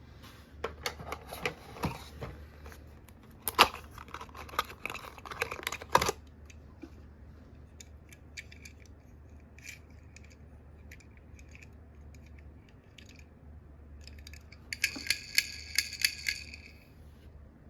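Die-cast toy minicars and their plastic cases being handled: clusters of clicks and taps for the first six seconds, scattered single ticks after that, then a dense run of clicks near the end.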